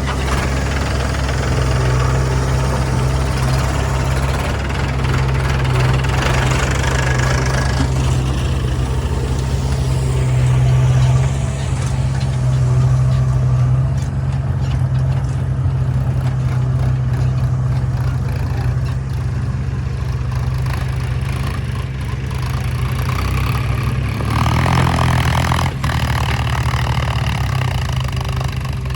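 Heavy diesel machinery engine running steadily, with a brief louder, noisier patch about 25 seconds in.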